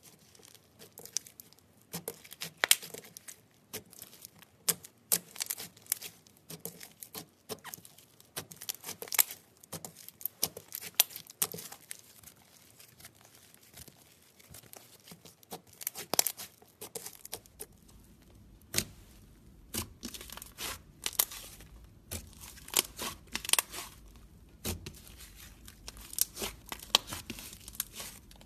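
Hands squeezing, stretching and pressing fluffy slime: a continuous, irregular stream of soft crackles and tearing sounds, broken by sharper snaps every second or so.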